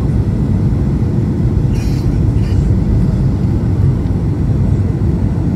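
Airliner cabin noise on final approach: a steady low rumble of the jet engines and airflow heard inside the cabin.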